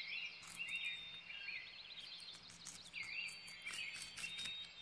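Guinea pigs munching and tugging at fresh grass: a run of faint crunches and rustles. Short high, wavering chirps sound over it, in about three groups.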